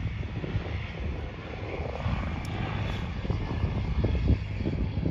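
Wind buffeting the microphone outdoors: an uneven, gusty low rumble over a steady background hiss.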